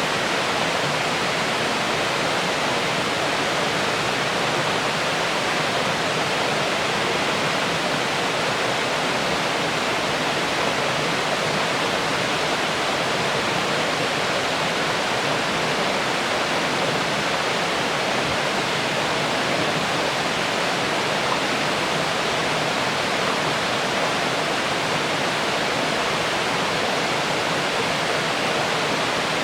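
Waterfall pouring steadily into its plunge pool: a loud, even rush of falling water that does not change.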